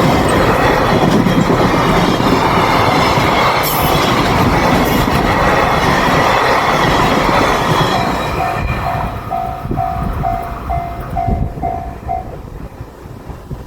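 A freight train headed by a JR EF210 DC electric locomotive rolling through a level crossing: a loud rumble with wheels clacking over the rail joints, fading after about eight seconds. The crossing's alarm bell rings evenly at about two strikes a second. It comes through as the train noise fades and stops about twelve seconds in.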